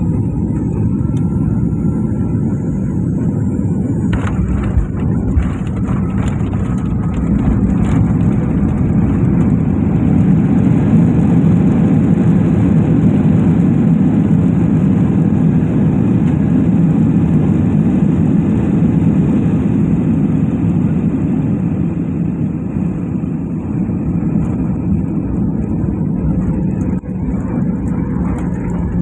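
Inside the cabin of a Boeing 737-800 on landing: the jet's CFM56 engines and the airframe, with a high whine at first, then knocks and rattles about four seconds in as the aircraft settles onto the runway. The engine noise then swells into a loud rush through the middle, typical of reverse thrust and braking, and eases toward the end as the jet slows on the rollout.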